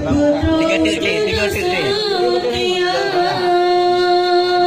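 A solo voice singing in an ornamented, melismatic style: quick runs and turns of pitch, then a long steady held note in the second half.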